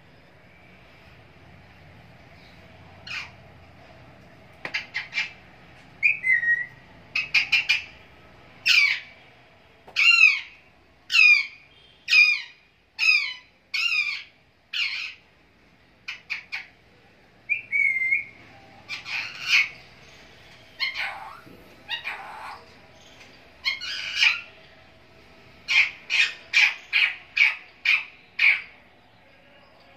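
Alexandrine parakeet calling: a long series of short, loud screeches, many sliding downward in pitch, about one a second through the middle, with a fast run of calls near the end.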